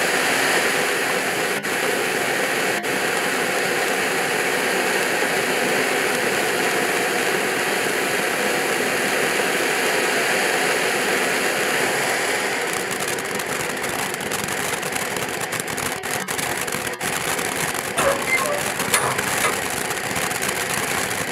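Ground fountain firework spraying sparks with a steady hiss. A little past halfway it starts to crackle, with a few louder pops near the end.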